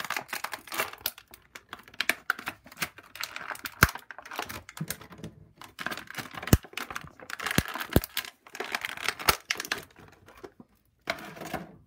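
A clear plastic blister tray from a toy package crinkling and crackling as it is handled and pulled apart. Several sharp clicks stand out through it.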